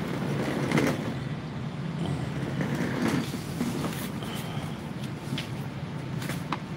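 Steady low rumble of passing road vehicles, with a few faint clicks about 1, 3, 5 and 6 seconds in.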